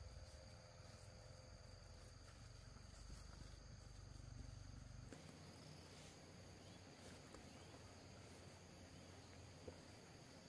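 Faint forest ambience: insects droning steadily at a high pitch, with a low rumble in the first half that stops suddenly about halfway through.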